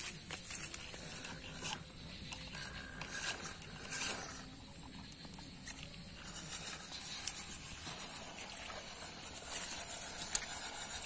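MN99S scale RC crawler driving through mud and shallow water, with scattered small clicks and splashes of its tyres. A thin, steady high-pitched whine grows louder about seven seconds in.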